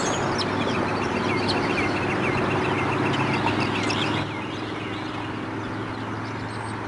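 Outdoor ambience with birds chirping in quick repeated short calls over a steady noise and a low hum. The chirps thin out and the level drops a little about four seconds in.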